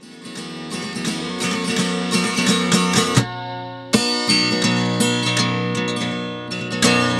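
Background music: an instrumental passage of a song carried by strummed acoustic guitar, dropping out briefly about three seconds in before the strumming comes back.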